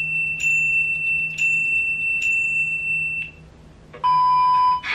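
A high-pitched chime sound effect struck four times, about a second apart, each strike ringing on into the next. It is followed near the end by a short, steady electronic beep, the TV test-pattern tone heard with colour bars.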